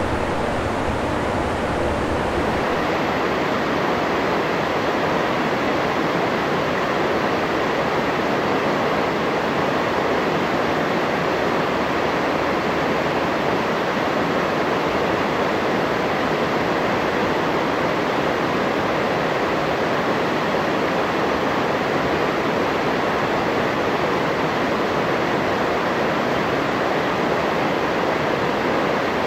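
Steady rushing of river water flowing over rocks, an even noise with no breaks.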